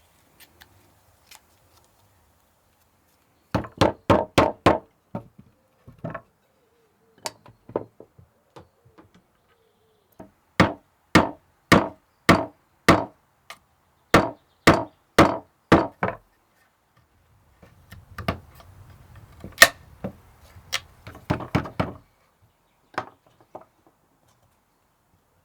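A Viking-age hand tool striking wood in repeated sharp, ringing knocks. They come in runs of about two blows a second with pauses between. Near the end a rougher, scraping stretch comes with quicker knocks.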